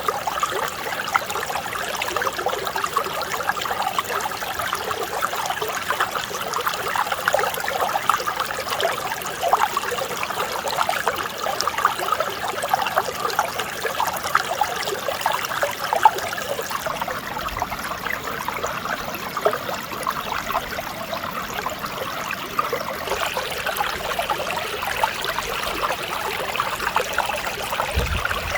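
Mountain stream flowing over rocks: a steady babble and trickle of clear running water.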